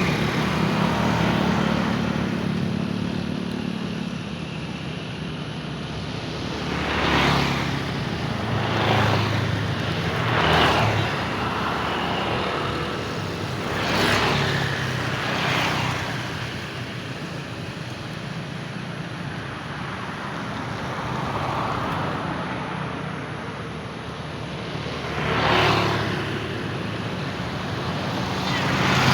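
Outdoor traffic and airport noise: a steady low rumble, with vehicles passing close by in brief whooshes six or so times.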